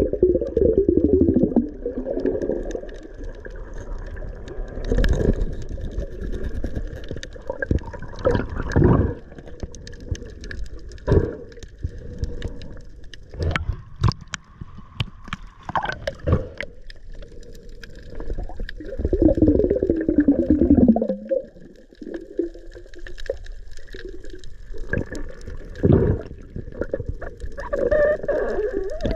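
Muffled water noise picked up by an underwater camera on a snorkelling diver: sloshing and gurgling, with scattered knocks and thuds. A low moaning tone slides down in pitch near the start and again about two-thirds of the way through.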